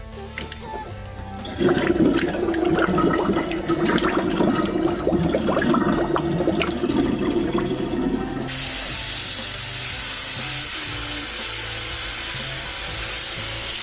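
Water splashing and sloshing in a sink as laundry is rinsed by hand, with many small splashes. About eight seconds in it gives way to a faucet running steadily.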